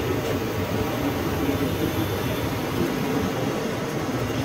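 Steady low background noise of a large exhibition hall.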